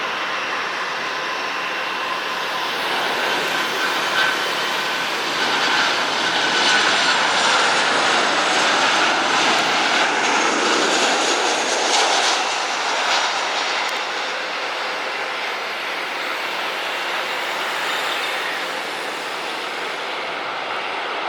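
Jet engines of a Boeing 737-800 (CFM56 turbofans) running with a steady rush and a thin whine, swelling a little towards the middle and then easing slightly.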